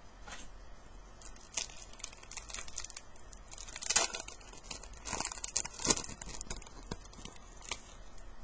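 Wrapper of a hockey card pack being torn open and crinkled, with cards handled: a run of crackling rustles, loudest about four and six seconds in.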